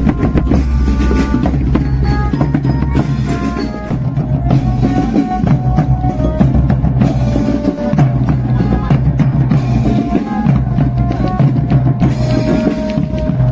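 A marching drum band playing: bass drums and snare drums beat a steady march rhythm under a melody line of short held notes.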